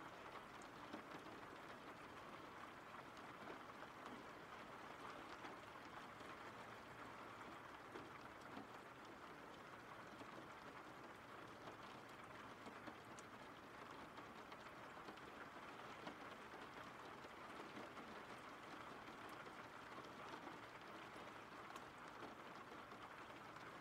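Steady, faint rainfall, with scattered small ticks of drops hitting a surface.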